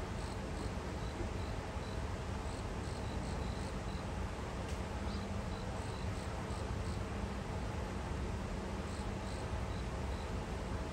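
Short high chirps repeated in small clusters, typical of insects singing, over a steady low background rumble.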